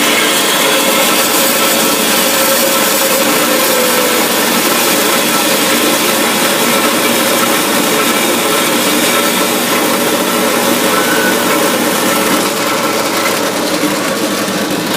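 Kalamazoo H9ADV horizontal bandsaw running and cutting through stock: the motor's steady hum under a continuous grinding hiss from the blade. The blade is one the owner thinks is pretty dull. The high hiss thins out near the end as the cut nears completion.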